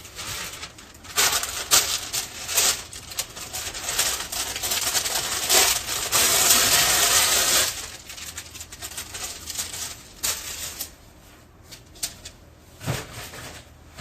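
Food-preparation handling noises: a run of clicks and knocks, then a steady hiss lasting a few seconds, then a few more scattered knocks.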